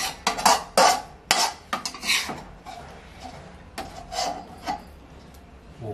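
Metal spatula scraping along a wok as stir-fried basil chicken is scooped out, with a quick run of scrapes and clinks in the first couple of seconds and a few lighter scrapes about four seconds in. There is no sizzle; the burner is off and the dish is done.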